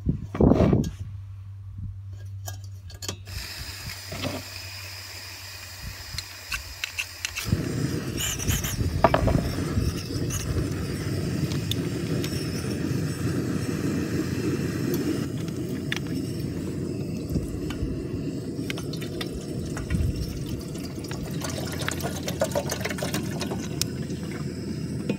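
A small canister camp stove being fitted to its gas canister with a few metal clinks. From about seven seconds in, the lit burner runs with a steady rushing noise. Near the end, water is poured from a plastic bottle into a kettle.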